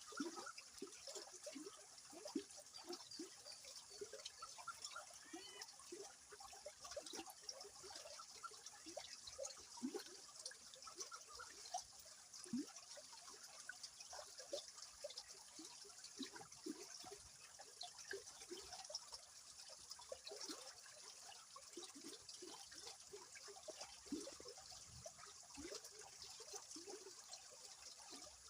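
Flowing river water, faint, trickling and gurgling: a steady hiss with many small bubbling plops throughout.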